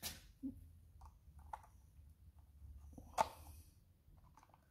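Faint clicks and light knocks from handling a moped's plastic air filter housing and setting a flat-blade screwdriver against the screw that holds its cap. The sharpest click comes about three seconds in.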